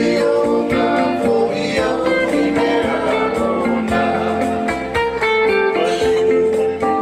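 A Samoan song sung to strummed string accompaniment, the voice holding long notes over a steady strum.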